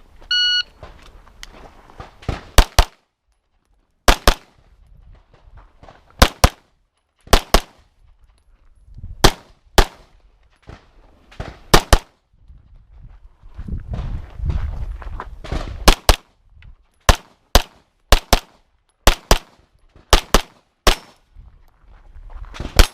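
A shot timer's electronic beep, then a string of pistol shots fired through a timed course of fire. The shots come singly and in quick pairs of two or three, with gaps of one to four seconds between groups.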